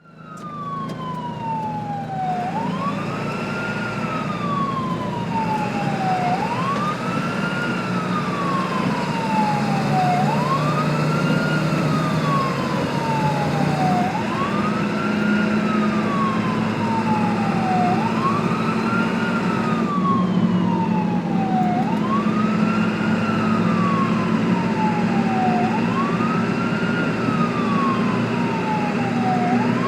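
Ambulance siren sounding a slow wail, fading in at the start. Each cycle rises quickly and falls off slowly, about every four seconds, over a steady low rumble.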